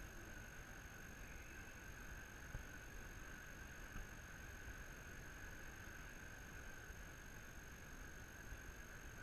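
Near silence: a faint steady room hum, with a couple of faint soft taps about two and a half and four seconds in.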